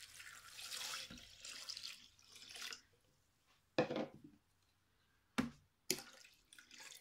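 Water poured from a jug into a food processor's stainless steel mixing bowl, splashing steadily for about three seconds, followed by a few short knocks.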